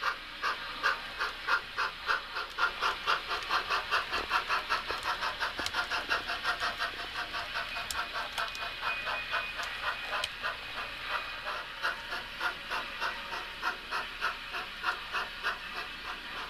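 Sound-equipped model of Yosemite Valley Railway's 1922 Baldwin 2-6-0 No. 29 steam locomotive, its speaker chuffing in a steady rhythm of about three beats a second as it pulls its train, the beat easing a little in the second half.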